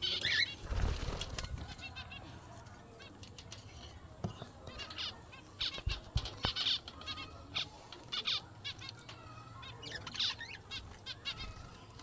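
Small caged pet birds chirping and chattering in many short, quick high calls, with a brief rustle about a second in.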